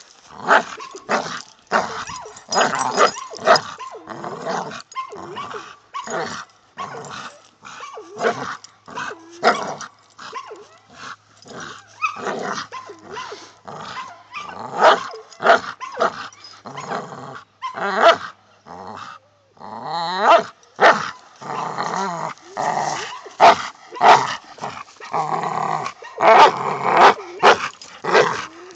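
Blue nose pit bull growling and barking in repeated short bursts while tugging hard at a hanging rope.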